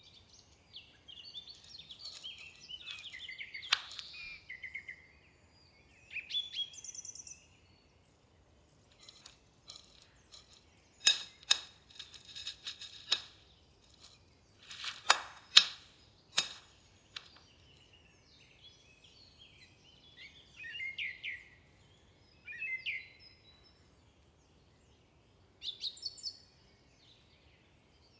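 A metal spoon clinking and scraping against a ceramic bowl in two short bouts while scooping rice, with birds chirping intermittently in the background.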